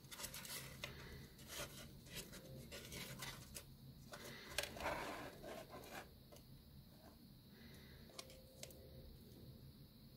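Faint crinkling and scratchy rustling of a folded craft-paper origami vase, stiff with spray paint, as it is turned over in the hands. There are many small clicks and scrapes in the first six seconds, the fullest rustle about five seconds in, then only a few scattered clicks.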